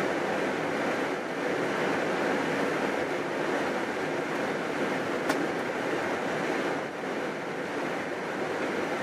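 Steady rushing cockpit noise of an Airbus A320 taxiing on the ground, its engines at idle, with one sharp click about five seconds in.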